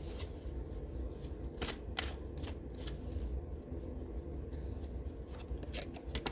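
Tarot cards being shuffled and handled by hand: an irregular run of crisp card snaps and slaps, in two clusters.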